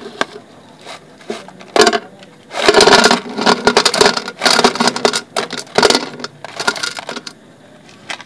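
Chunks of dry edible clay clattering as they are tipped out of a thin plastic tray onto a plate. A single sharp crack comes about two seconds in, then a dense rattling pour for several seconds that thins out near the end.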